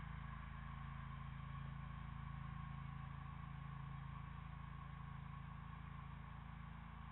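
A steady low hum with faint hiss, unchanging throughout.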